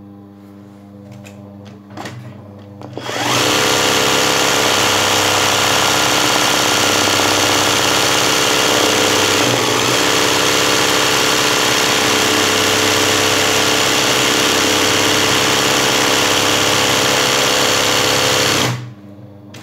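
Electric sewing machine stitching zigzag satin-stitch embroidery, with hooped fabric guided by hand. After a low hum for about three seconds, the machine starts suddenly, runs steadily, and stops abruptly about a second before the end.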